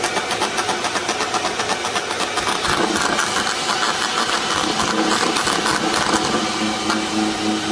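An FM transmitter's RF self-oscillation, heard through a radio receiver as a hissing buzz that pulses several times a second. The fault is typical of a poorly shielded unit. A low pulsing hum joins near the end.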